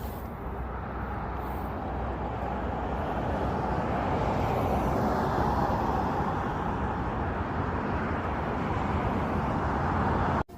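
Highway traffic noise, swelling over the first few seconds and holding steady, then cut off abruptly just before the end.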